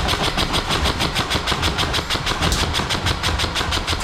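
Airsoft electric rifles firing on full auto: a fast, steady clatter of shots, about ten a second, that keeps on without a break.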